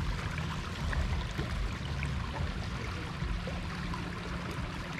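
Steady rush of muddy floodwater flowing through and past a mesh fish trap net, with a low rumble underneath.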